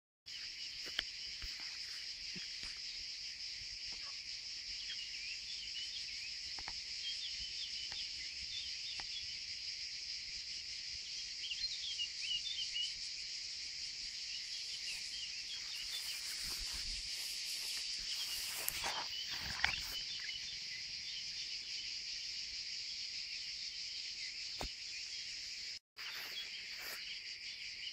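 Steady high-pitched insect chorus of meadow crickets or grasshoppers, with many short bird chirps over it. A few seconds of rustling noise come about two-thirds of the way through.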